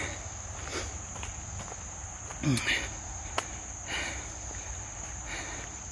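Chorus of insects making a steady high-pitched drone, with a few faint footsteps on the trail.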